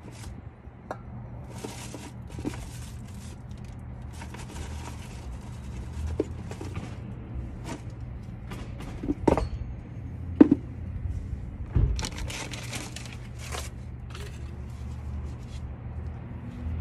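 Scattered small clicks, rustles and brief scrapes from gloved hands and tools handling a disc brake assembly, with one sharper click about ten seconds in, over a steady low hum.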